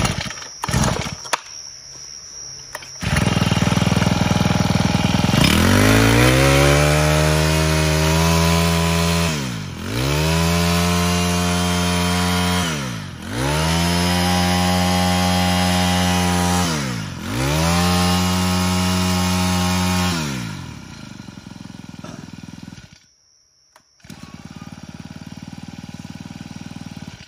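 Honda GX25 25cc four-stroke brush cutter engine running, after a few clicks at the start. It is revved up to high speed four times, each rise held for a few seconds and dropped back to idle, then settles to a lower, steadier running sound near the end.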